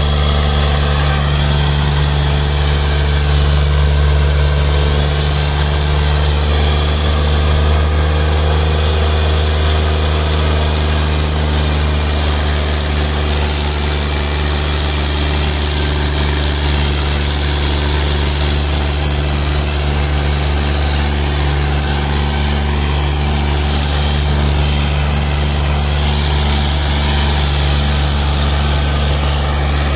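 Fiat 480 tractor's three-cylinder diesel engine running steadily under load as it drags a disc harrow through soil.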